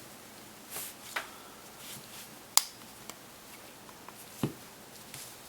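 Screen assembly of an iPod Touch 5th gen being pressed into its housing, its clips snapping into place: a handful of separate sharp clicks, the loudest about two and a half seconds in.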